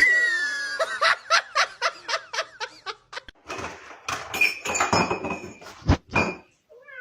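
A person laughing in quick repeated bursts, followed by a few knocks and thumps.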